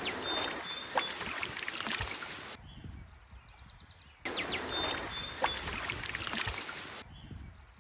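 Shallow stream water splashing and running close to the microphone as a trout is handled and let go in the water. It comes in two loud stretches with a quieter gap between, each with a sharp splash.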